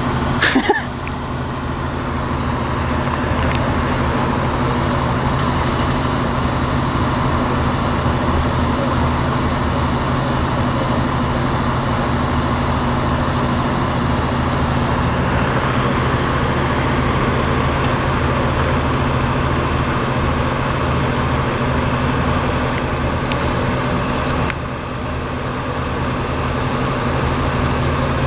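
Motor vehicle engine running steadily, a constant low hum with road-traffic noise, and a brief sharp noise about half a second in.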